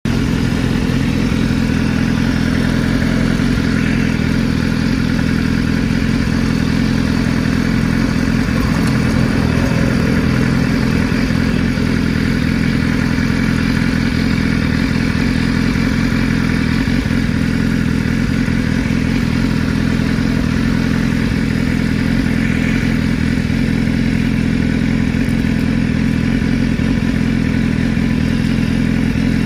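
Sport motorcycle's engine idling steadily at a standstill, with no revving.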